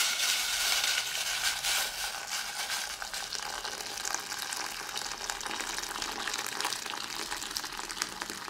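Just-boiled water poured in a steady stream from a kettle into a stainless steel pot of sliced green plantain, splashing and gurgling as it fills; the pour grows gradually quieter.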